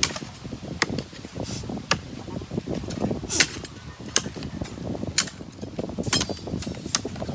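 Hand tools knocking sharply on brick or masonry during manual building work: separate, uneven strikes about once a second, over a low background rumble.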